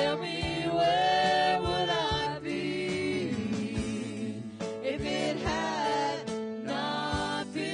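Church praise team singing a gospel song, several voices together with vibrato, backed by keyboard and electric guitar.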